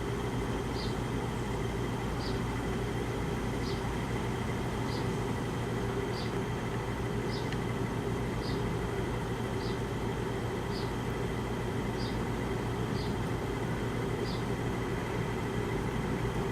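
Window air conditioner running steadily with its compressor off, a constant hum and air rush while the room warms up: the unit is not cooling properly. Faint light ticks recur a little over a second apart.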